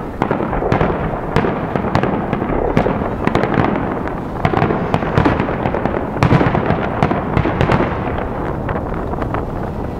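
Fireworks display: aerial shells bursting in quick succession, many sharp bangs over a continuous rumble. The barrage thins out slightly near the end.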